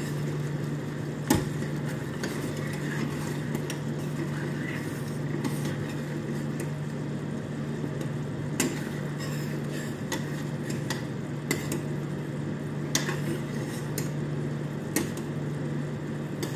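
Metal spoon stirring a thick cream sauce in a stainless steel saucepan, with scattered clinks of the spoon against the pan, the loudest about a second in. A steady low hum runs underneath.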